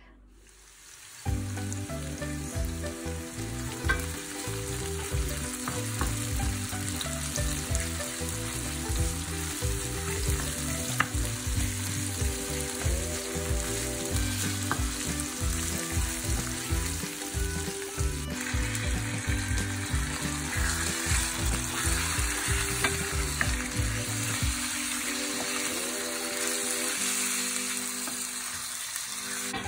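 Sliced onions frying and sizzling in a stainless steel pan, stirred with a wooden spoon that clicks and scrapes against the pan. The sizzle starts about a second in.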